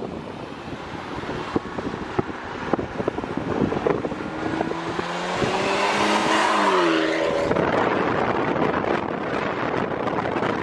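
Hyundai Genesis Coupe with an aftermarket exhaust pulling away past the microphone. Its engine note climbs and then drops in pitch about two-thirds of the way through. Wind noise on the microphone follows.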